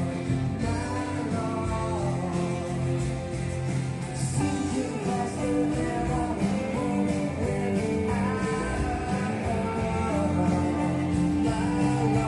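A song with singing and guitar playing from a vinyl record on a Victor TT-81 direct-drive turntable fitted with an Ortofon 2M Red cartridge, at a steady level.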